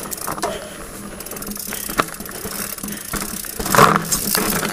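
Mountain bike rear freehub ticking rapidly as the hardtail coasts over rough dirt trail, with a brief louder sound near the end.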